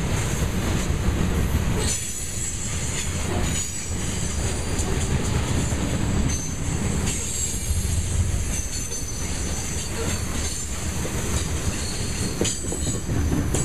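Grain train's cars rolling past: a steady low rumble with wheel clicks over the rail joints and high-pitched wheel squeal that comes and goes.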